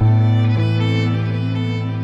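Slow instrumental violin music over a held low note, with the notes sustained steadily; a new low note comes in right at the start.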